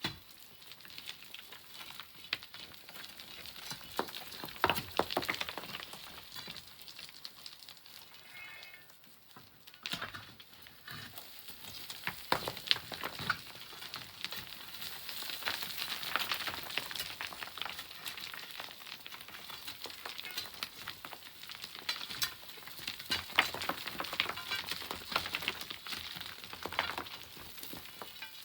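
Sand and small pebbles trickling and falling, a near-continuous crackle of grains with sharper clicks of individual pebbles. It eases off briefly about a third of the way in, then builds again.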